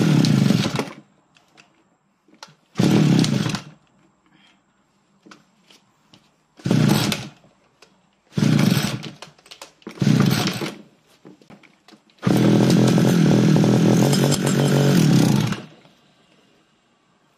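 Stihl FR 3000 backpack brush cutter engine being pull-started after nine months' storage: it fires briefly and dies on five pulls, then catches and runs for about three seconds before dying again. These are hard starts on a spark plug just cleaned with petrol, which later gives only a weak spark.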